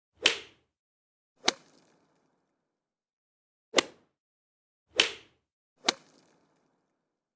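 Five short, sharp smacks at uneven intervals, each dying away quickly, with silence between.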